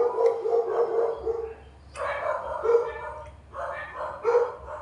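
A dog barking and yipping repeatedly in short calls, with a brief lull partway through.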